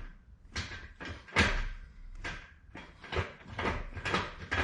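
Stock five-speed gear shifter of a 1999 Mazda Miata being moved through the gears, the lever clicking and clunking into and out of the gates in a series of knocks about two a second.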